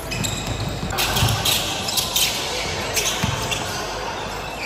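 Indoor basketball game sounds: a ball bouncing on the court and players' shoes and voices, echoing in a large hall. The busiest stretch, with several sharp knocks, comes between about one and three seconds in.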